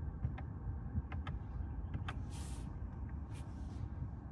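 Buttons on a BMW i3's climate control panel clicking as they are pressed one after another, over a steady low rumble. Two short hisses come in around the middle.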